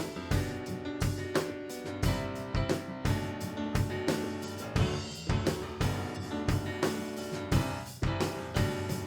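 Worship band playing an instrumental passage between sung lines: a drum kit keeps a steady beat under sustained chords.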